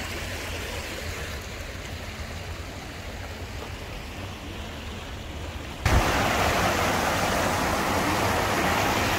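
Shallow stream trickling and rushing over rocks, with a low rumble underneath. About six seconds in, a louder, hissier even rush starts abruptly with a thump and holds steady until it cuts off sharply.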